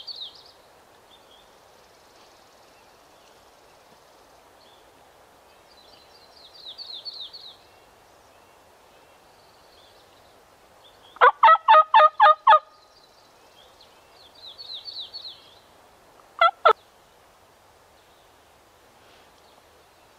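Wild turkey gobbling: a loud, rapid rattling run of notes lasting about a second and a half, about eleven seconds in, then a brief double note some five seconds later. A small bird's quick high trill repeats three times between them.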